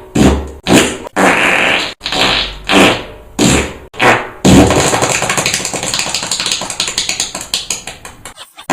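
Fart sound effects: a quick series of about seven short blasts, each around half a second and cut off abruptly, followed by one long sputtering fart of rapid flutters that trails away near the end.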